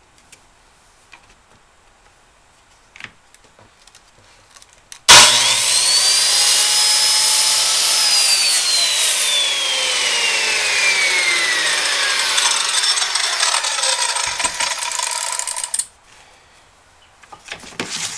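Corded circular saw switched on about five seconds in and run through a cut across wood in a dado jig: loud, with a motor whine that climbs a little and then sinks steadily in pitch during the cut. It stops abruptly about eleven seconds later; a few light handling clicks come before and after.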